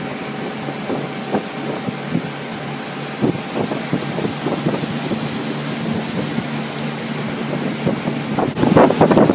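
Motorboat running at speed towing a tube, its engine hum under the churn of the wake and wind buffeting the microphone. The wind and water noise get louder and rougher near the end.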